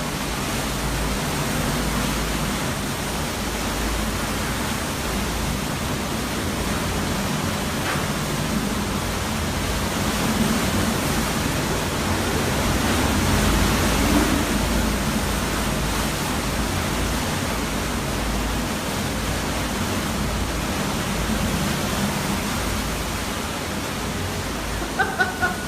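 Hurricane Irma's winds rushing as a loud, steady noise, swelling a little about halfway through.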